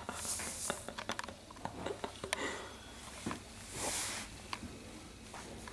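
Snorkie puppy's claws clicking on a tile floor in quick, irregular ticks as it scampers about, with a couple of brief soft rustles.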